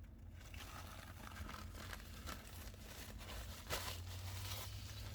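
Fast-food paper packaging crinkling and rustling in a few short bursts, the clearest about two-thirds of the way through, over a low steady hum.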